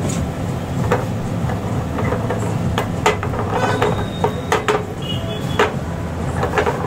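Food being stirred and tossed in a small metal frying pan on a gas stove, with scattered scrapes and knocks of the pan and spatula over a steady low rumble.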